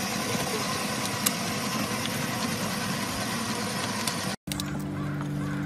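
Electric ride-on toy car driving, its small motors whirring over the hiss of its plastic wheels rolling on pavement. Just after four seconds in, the sound cuts out briefly and a steady low hum of several tones takes over.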